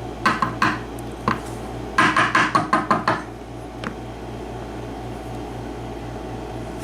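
Sharp taps on a small padlock body: a few knocks, then a quick run of about nine, as the lock is knocked to shake loose a top pin stuck in its chamber.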